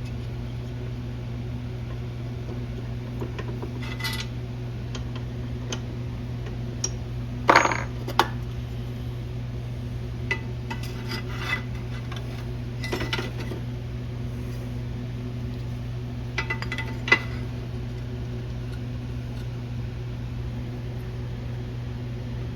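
Metal tools and parts clinking and clattering in scattered sharp knocks, the loudest about seven and a half seconds in, over a steady low hum.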